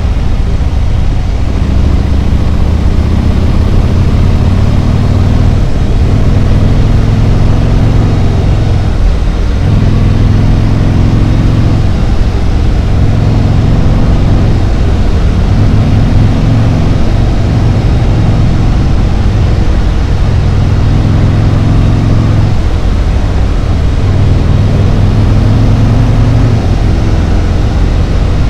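Harley-Davidson Road Glide's V-twin engine running under way on the road, its note dipping and picking up again several times with throttle and gear changes, over steady wind and road noise.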